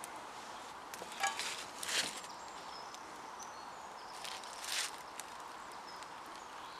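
Wood fire burning in a metal fire box, with a few sharp cracks and metallic clicks about one, two and nearly five seconds in as metal tongs turn a foil-wrapped parcel in the flames.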